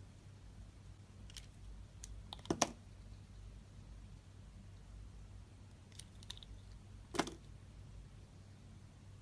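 Bar soap being cut with a knife: a few scattered crisp clicks and snaps as the blade cuts through. The loudest come in a quick cluster about two and a half seconds in and a single one about seven seconds in.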